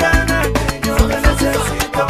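Instrumental break of an upbeat Latin dance song: a fast, steady beat of drums and hand percussion under held instrumental notes, with no singing.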